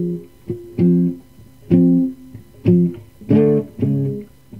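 Guitar played in slow strummed chords, about one a second, each ringing out and fading, the fullest and brightest a little past three seconds in. Recorded on old cassette tape.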